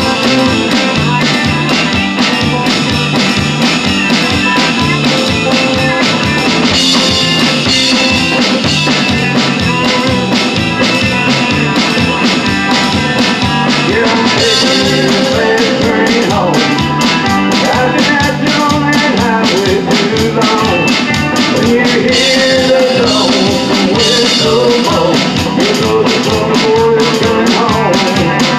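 A rock-and-roll style band playing a song with a steady drum beat and a lead line that bends in pitch through the second half.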